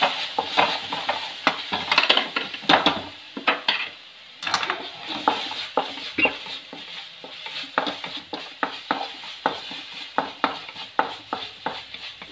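Wooden spatula scraping and knocking against an aluminium kadai as onion masala is stirred, in quick repeated strokes, over the sizzle of a little added water cooking off in the hot pan. The sizzle is loudest for the first few seconds and then dies down while the stirring goes on.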